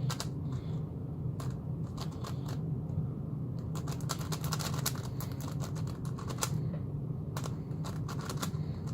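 X-Man Galaxy V2 M magnetic Megaminx being turned fast in a speedsolve: quick, irregular clusters of plastic clicking and clacking as the faces snap around. A steady low hum runs underneath.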